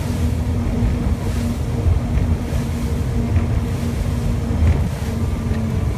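Outboard engines of a 41-foot center-console boat running steadily under way, a low rumble with a held hum, mixed with wind and water rushing past.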